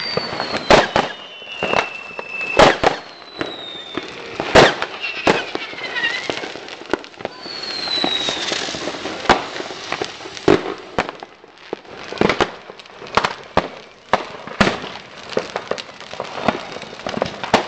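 Many fireworks and firecrackers going off at once, sharp bangs at irregular intervals, the loudest in the first five seconds. Several whistles fall in pitch among the bangs during the first nine seconds.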